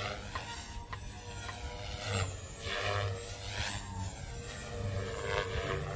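Radio-controlled model aircraft flying overhead, its motor whine sliding down and up in pitch again and again as it passes back and forth.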